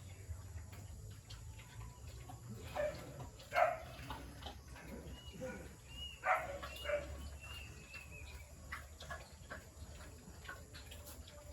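A few short animal calls, clustered about three and a half and six and a half seconds in, with thin high chirps between them, over a steady low hum.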